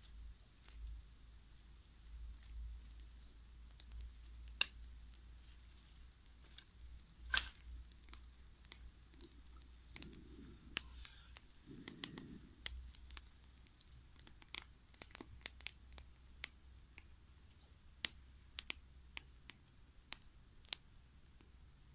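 Small wood fire crackling, with irregular sharp pops and snaps that come thicker in the second half, and two short dull thuds about ten and twelve seconds in.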